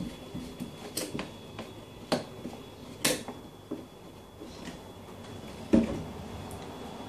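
Scattered clicks and taps of a plastic bottle and a glass beer bottle being handled over a sink, with one louder knock near the end as a bottle is set down on the counter.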